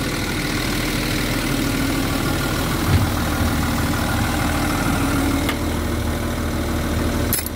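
Volvo EC210BLC excavator's six-cylinder diesel engine running steadily at idle, now that its replaced high-pressure fuel pump has it starting and running again. A brief low thump sounds about three seconds in.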